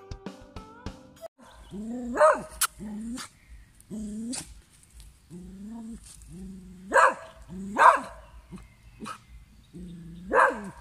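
American cocker spaniel whining and barking in a run of calls: drawn-out whining notes that rise into sharp barks. The loudest barks come about two seconds in, twice around seven to eight seconds, and near the end.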